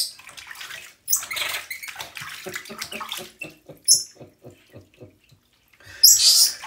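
Water splashing and sloshing in a bathtub as a hand rubs a small wet monkey. A quick run of short, even pulses comes in the middle, with sharp splashes near the start and near the end.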